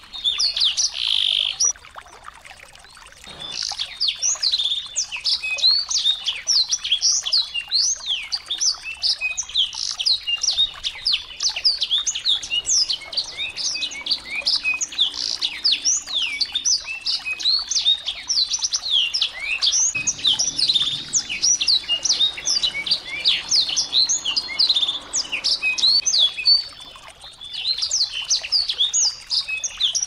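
Small songbirds chirping rapidly in dense, overlapping runs of high, thin notes, with a short lull about two seconds in.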